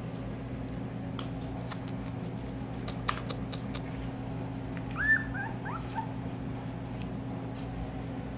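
Two-week-old Siberian husky puppy giving one short, high squeak about five seconds in, followed by a couple of fainter chirps, over a steady low hum.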